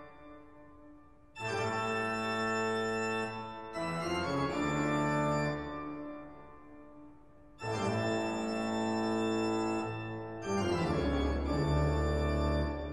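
Intro music of slow, sustained chords, each held for a few seconds and then fading, with a new chord about every three seconds and a deep bass note entering near the end.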